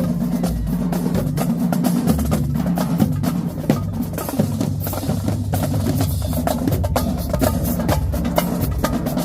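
Marching drumline playing a fast cadence: rapid snare drum strokes and rolls over pitched bass drums and tenor drums.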